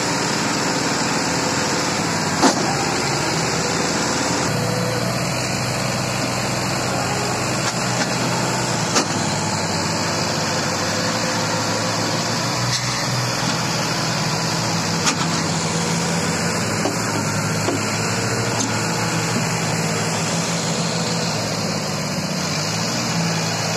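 Sonalika tractor's diesel engine running hard under load, hauling a loaded trailer through deep loose soil, with a steady low note that strengthens about four seconds in. A few short sharp knocks sound over it.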